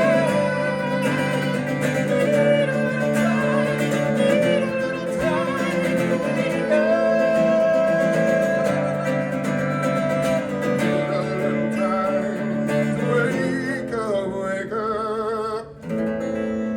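Acoustic music played live: guitar with a long held melody line that wavers with vibrato, with a brief drop near the end before a held chord.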